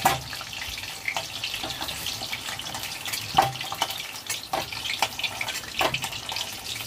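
Whole onions frying in hot oil in a metal kadai, a steady sizzling and crackling, with a metal spatula knocking against the pan several times as the golden-brown onions are lifted out of the oil.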